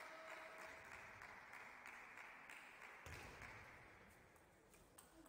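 Near silence in a quiet sports hall, with a few faint knocks of a table tennis ball during a rally.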